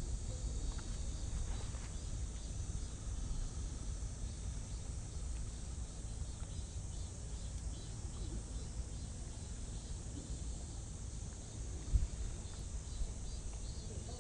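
Quiet outdoor ambience: a steady low rumble with a faint high-pitched chirring over it, and one short thump near the end.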